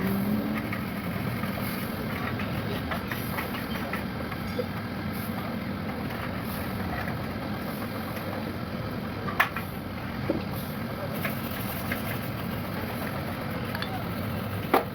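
A steady low rumble with a few sharp knocks, the loudest about nine seconds in and another near the end.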